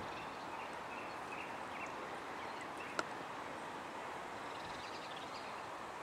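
Steady outdoor background hiss with faint distant bird calls, and a single sharp click about halfway through.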